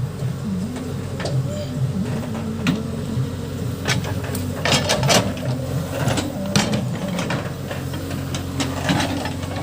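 Case backhoe loader's diesel engine running steadily under load, with a series of sharp knocks and clanks from the machine at work, thickest around the middle.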